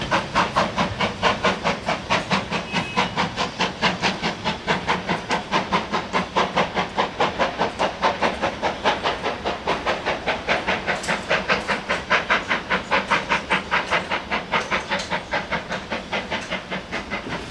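Steam locomotive exhaust beats as a train pulls away, a steady fast chuff of about four or five beats a second, slowly growing fainter as it draws off.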